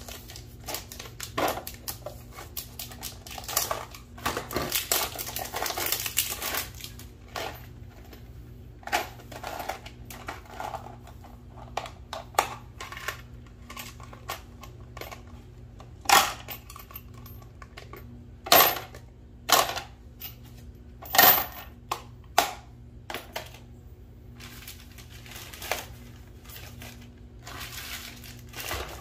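Small metal PEX plumbing fittings clinking and clattering as they are handled, in a run of irregular sharp clicks. There is a rustling stretch about 4 to 7 seconds in, and the loudest clicks come about 16 to 22 seconds in. A faint steady low hum runs underneath.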